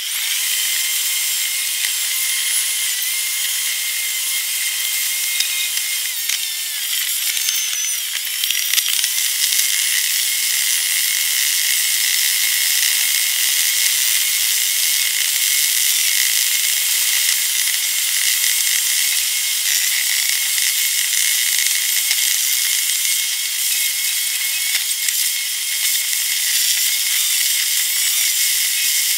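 A car's in-cabin driving noise sped up about twentyfold, heard as a steady high-pitched hiss with faint whining tones and a few brief wavering whistles about seven to nine seconds in.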